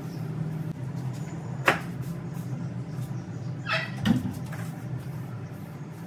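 A long-handled floor-cleaning tool knocking and scraping on a hard floor during sweeping: a sharp knock, a short squeak falling in pitch, then a dull thump, over a steady low hum.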